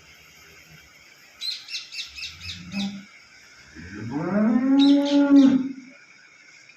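A dairy cow gives one long moo about four seconds in, rising in pitch and then holding for around two seconds. Just before it, a bird gives a quick run of chirps.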